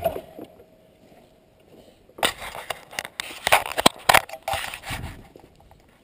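An ATV engine dies away right at the start. After a short hush, a run of bumps, clicks and rubbing scrapes sounds right on the microphone as the camera is handled and taken off its mount.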